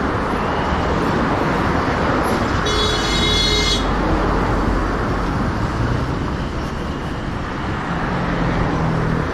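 Steady road traffic noise. A vehicle horn sounds once for about a second about three seconds in.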